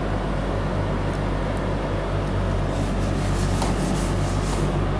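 A whiteboard being wiped with an eraser in quick rubbing strokes, roughly four a second, for about two seconds starting a little past halfway, over a steady low electrical hum.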